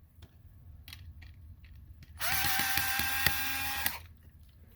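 Power screwdriver running for about a second and a half, a steady whine that rises briefly as it spins up and then cuts off, backing a screw out of a robot vacuum's motor assembly. A few faint clicks of handling come before it.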